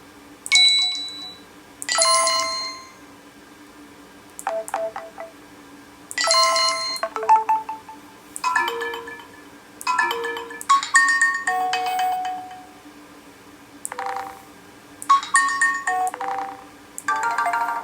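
HTC Desire 610 notification tones played one after another from the phone's speaker: about a dozen short chimes and melodic jingles, each a second or two long, with brief pauses between them.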